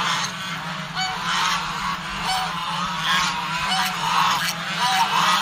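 A large flock of domestic geese honking, many calls overlapping without a break, over a steady low hum.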